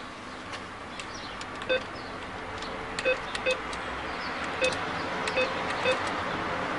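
ATM keypad beeping as keys are pressed: about six short beeps at uneven intervals, over steady traffic noise.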